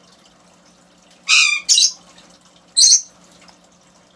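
A bird squawking in short, high-pitched calls: two close together about a second and a half in, and one more about three seconds in.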